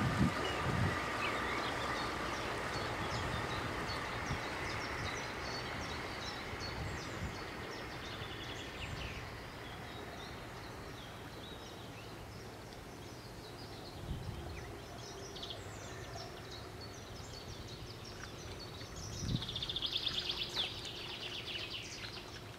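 A brushless electric outboard motor on a small boat whines with a thin steady tone that fades away over the first several seconds as the boat moves off. Birds chirp over a steady outdoor background, with a louder rapid bird trill near the end.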